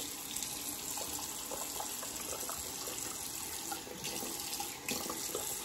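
Bathroom sink tap running steadily while water is splashed onto the face.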